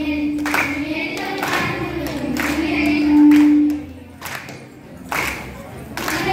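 A group of girls singing together with scattered hand claps. One long note is held and swells, then breaks off about four seconds in, leaving quieter voices and claps.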